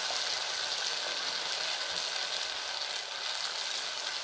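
Batter-coated potato sticks deep-frying in hot oil: a steady, dense crackling sizzle as the coating sets and turns crisp.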